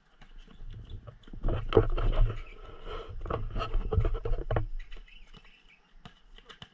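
Camera handling noise: a low rumble full of knocks and rubbing on the microphone as the camera is picked up and moved, lasting about three seconds in the middle, then a few faint knocks like footsteps or a ball bounce on the concrete court.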